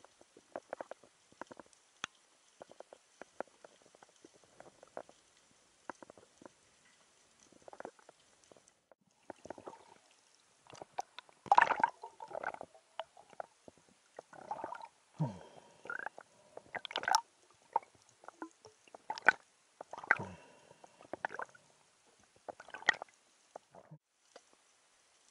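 Underwater sounds: scattered faint clicks and ticks at first, then from about ten seconds in louder irregular gurgling bursts of bubbles and knocks, a few of them sliding down in pitch.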